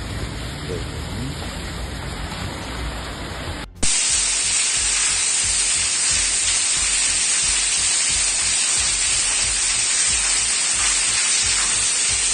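Rain and floodwater noise on a flooded street. A sudden cut about four seconds in gives way to a louder, steady rushing hiss of water inside a flooded building's stairwell.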